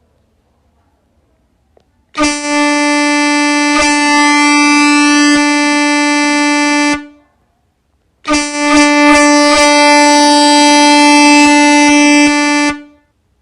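Air horn sounding two long blasts of about five seconds each, about a second apart, each a single steady pitch.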